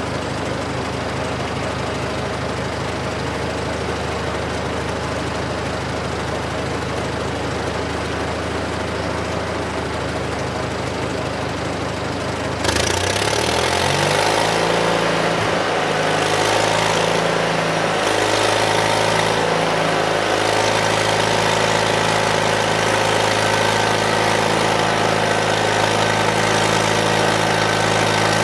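Band sawmill's gasoline engine idling steadily. About halfway through it is throttled up: the sound jumps louder and the pitch climbs in steps, then holds steady at speed, ready for the first cut.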